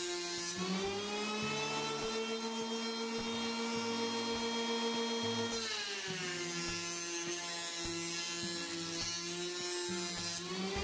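An electric hand planer, mounted upside down in a table as a jointer, running with a steady high whine while a wooden board is pushed across its cutter head. The pitch rises about half a second in as one pass clears the cutter, drops about halfway through as the board is fed in again, and rises again near the end.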